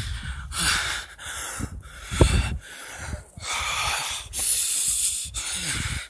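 Heavy, rapid breathing close to the microphone, a rushing in-and-out hiss about once a second. This is the labored breathing of someone short of breath in the thin air at 15,500 feet.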